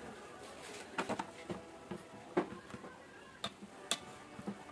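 A scattering of light clicks and knocks: a Philips rice cooker's lid being opened and a plastic rice paddle knocking against the inner pot as the freshly cooked rice is stirred.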